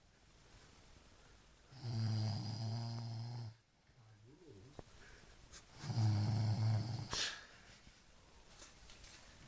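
Snoring: two long, loud snores about four seconds apart, each lasting about a second and a half, with quieter breathing between them and a brief click just after the second snore.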